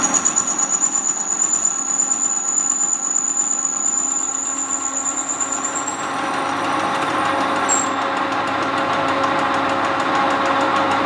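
Metal engine lathe running, with a steady mechanical hum and a quick pulsing throb. A thin high whine stops about halfway through.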